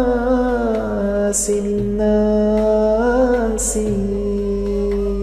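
A voice singing a slow Sufi poem, holding long notes that slide down in pitch about a second in and bend again around three seconds, over a steady low musical drone. Two short hissing 's' sounds cut through.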